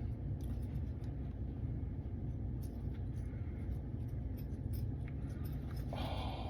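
Pipe tamper pressing loose pipe tobacco into the bowl: faint scattered ticks and rustling, with a short scratchy scrape near the end, over a steady low hum.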